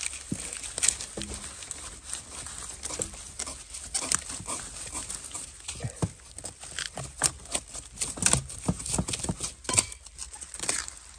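Dry bamboo leaf litter and papery sheaths crackling and rustling, with irregular sharp snaps and knocks, as a gloved hand works among the stems at the base of a wild bamboo clump.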